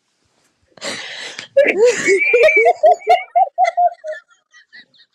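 A woman laughing hard: a wheezy, breathy stretch about a second in, then a quick run of high-pitched laughs that climb in pitch and taper off.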